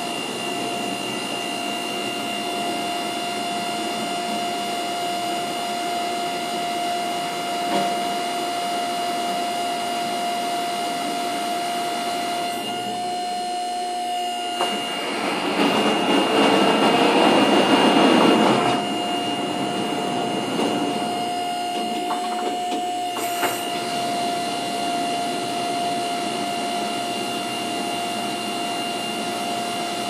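EZ Boardwalk Jr. band sawmill running steadily: the engine's hum with a steady high whine. About halfway through, a louder rushing noise swells for a few seconds and then falls back to the steady running.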